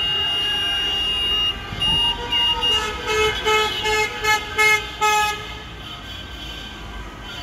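Car horns honking in a street celebration of a football win: one long held horn blast, then a quick rhythmic run of short toots, over the noise of passing traffic.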